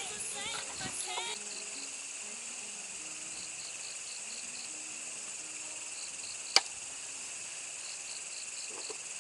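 Night insects, crickets, chirping steadily in short repeated pulses over a continuous high trill, with one sharp click about six and a half seconds in.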